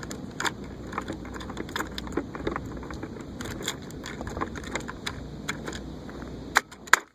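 Irregular sharp cracks of M249 SAW machine-gun fire from the firing line, over a steady low wind rumble. The two loudest cracks come near the end.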